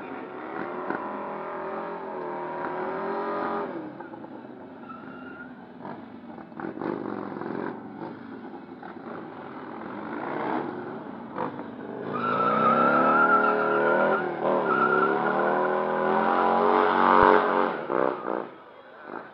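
Motorcycle engine revving hard during a stunt burnout, rising and falling in pitch as the rear tyre spins and smokes. It is loudest over the last several seconds, then cuts off sharply near the end.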